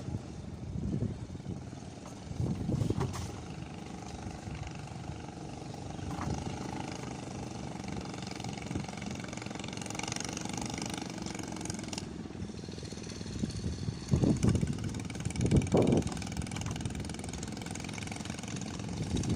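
Strong wind buffeting the microphone: a low, rumbling roar that swells in gusts, the strongest gusts near the end.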